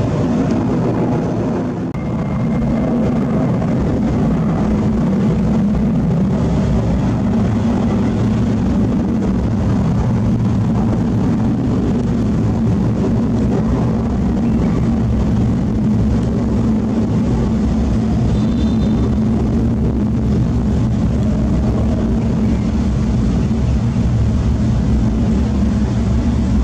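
Boeing 747-400 freighter's four jet engines at climb power just after takeoff: a steady low rumble as the aircraft climbs away.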